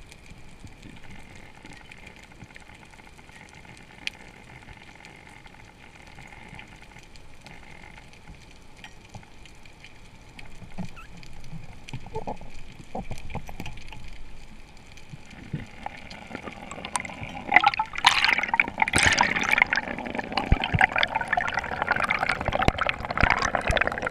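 Underwater water noise at a diver's camera: a low steady hiss with a few scattered clicks, then, over the last third, loud rushing and gurgling water as the diver rises toward the surface.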